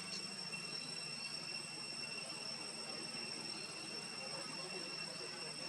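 Steady high-pitched insect drone held on one pitch, over an even background hiss, with a few faint short chirps.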